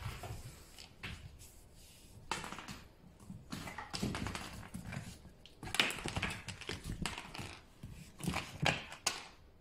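Yorkshire terrier puppy running and playing on a hard floor: irregular scuffles and taps, the loudest about six and nine seconds in.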